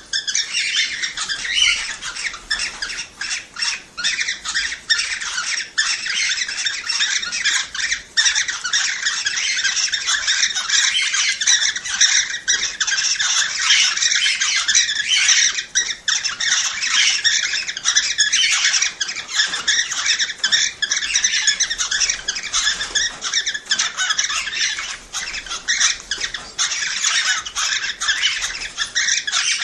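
Cockatiels calling and chattering without a break: many overlapping chirps, whistles and squawks.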